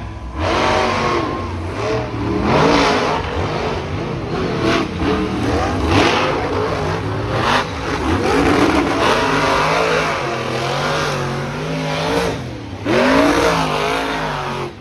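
Monster truck engines revving hard as the trucks race over dirt jumps, the engine pitch rising and falling again and again.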